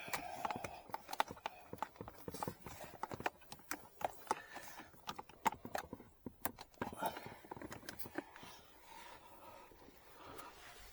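Irregular clicks and taps of plastic clips and wiring being handled and pressed into place behind a car's footwell trim.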